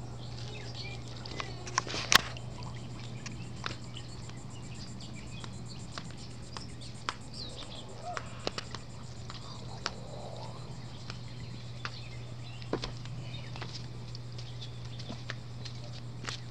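Swimming-pool water lapping and dripping as a man wades holding a baby: scattered small splashy clicks over a steady low hum, with a few faint chirps.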